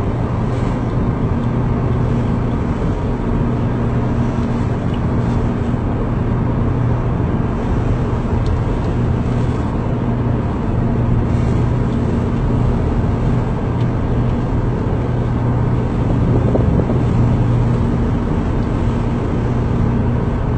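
Ship's engines running with a steady low drone over a constant rush of wind and sea.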